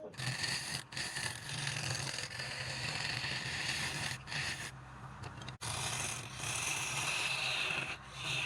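Wood lathe running while a turning tool scrapes the spinning workpiece: a steady scraping hiss over the lathe motor's low hum, broken off sharply a few times.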